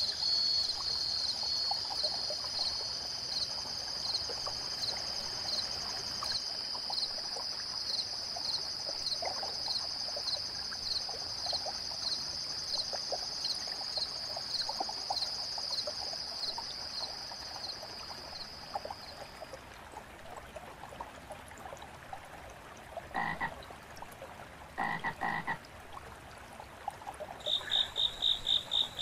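A summer-night chorus. Insects chirp in a high, even pulse over a steady high trill, and stop about two-thirds of the way through. Then two short frog croaks come about two seconds apart, and a faster high chirping starts near the end, with faint trickling water underneath.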